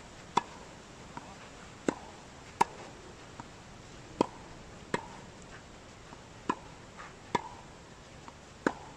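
Tennis ball struck with rackets in a volley drill: eight sharp pops of ball on strings, some in quick pairs about a second apart, with a few fainter ticks between.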